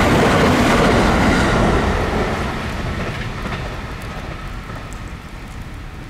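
JR West electric multiple-unit train running past, loud for about the first two seconds and then fading as it moves away. Rain noise carries on beneath it.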